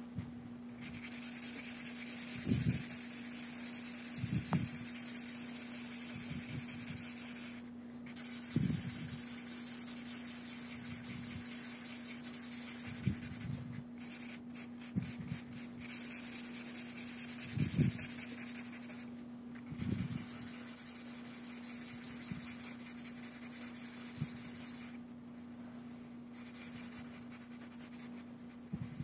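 Red felt-tip marker scratching back and forth over paper while coloring in an area, stopping briefly a few times as the tip lifts. Some soft low thumps are heard along with the strokes.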